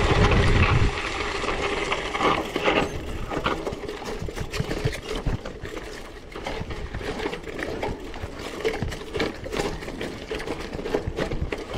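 Bicycle on 700x38c tyres riding over rough, rocky ground: a dense run of irregular clicks and rattles from the tyres and frame. Wind rumbles on the microphone for about the first second.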